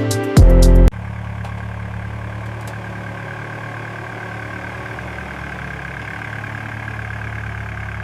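Music cuts off about a second in, leaving an engine idling steadily with a low hum.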